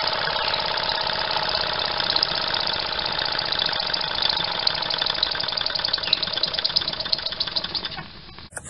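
Handmade model steam engine with a single-acting oscillating cylinder running fast, a rapid, even chuffing and clatter of exhaust beats. The sound drops away near the end.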